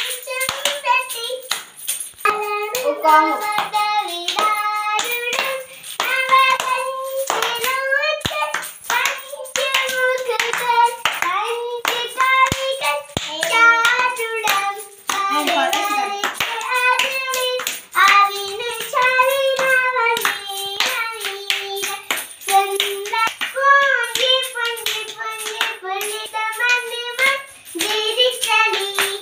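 Children singing a clapping-game rhyme in a high voice, with sharp hand claps keeping time along with the song.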